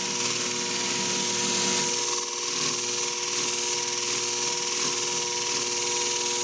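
Electric flat hone shear-sharpening machine running with a steady hum while a shear blade is held to its spinning wheel, grinding with an even, high hiss. The blade is hard steel and is being ground toward a 45-degree edge bevel. The hiss drops away abruptly at the very end as the contact stops.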